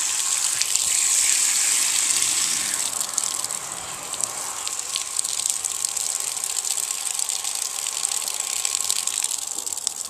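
Water spraying steadily from a handheld shower head fed by a portable propane tankless water heater, a continuous hiss.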